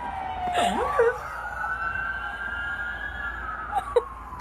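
Dog howling: one long howl that slides down in pitch, rises again and holds, then sinks, with a couple of short yelps mixed in.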